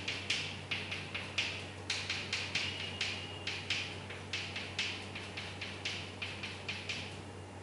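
Chalk tapping and scratching on a blackboard in quick short strokes, about three or four a second, as rows of small asterisks are drawn.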